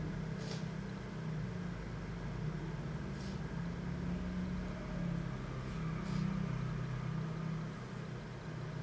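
A steady low hum, with three short sniffs about three seconds apart.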